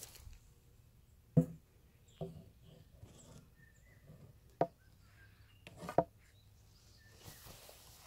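Footsteps in dry grass: four separate, uneven thuds a second or more apart, with faint rustling between them.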